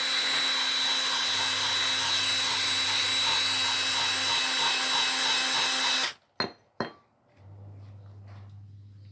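Power drill running steadily as it bores through the steel suspension linkage with a bit smaller than the 20mm wanted. It cuts off suddenly about six seconds in, followed by two short clicks.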